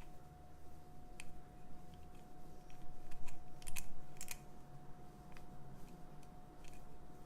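Lever pick and tension wrench working inside a six-lever ERA Big Six padlock: scattered small metal clicks as the levers are lifted, with a cluster of sharper clicks about three and a half to four and a half seconds in. A faint steady hum runs underneath.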